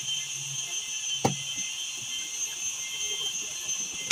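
Handling noise as a ruler and an interior panel are worked, with one sharp tap about a second in, over a steady high-pitched whine in the background.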